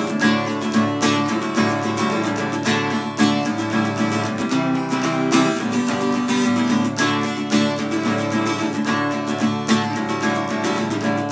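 Acoustic guitar strummed in a steady, fast rhythm.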